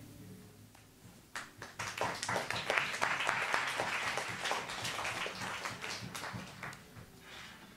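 Audience applauding after a spoken-word poem. The clapping starts about a second and a half in, builds quickly, then thins out and dies away near the end.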